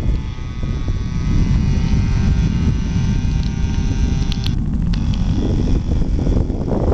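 Radio-controlled model airplane's engine droning steadily in flight, a buzzing pitched tone that fades out a little over halfway through as the plane moves away. Heavy wind noise on the microphone runs underneath.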